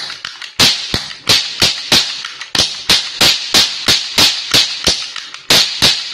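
Two toy cap pistols firing paper roll caps in quick succession: a string of about twenty sharp cracks, roughly three a second, with a short pause near the end.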